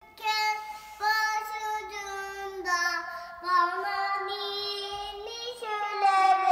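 A young boy singing, holding a series of long steady notes with short breaks between them.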